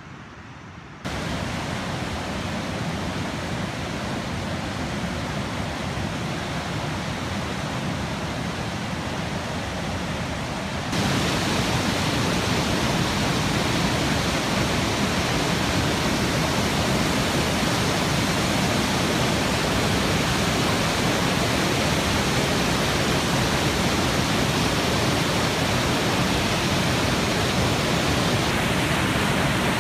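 Floodwater rushing through rapids on a creek at flood stage: a steady, loud rush of whitewater that steps up in loudness about a second in and again about eleven seconds in.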